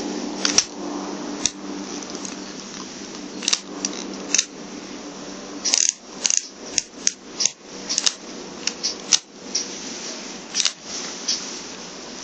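Tanaka gas revolver being handled: a scattering of short metallic clicks and snaps as the cylinder is swung out, worked and closed, quickest in the middle of the stretch.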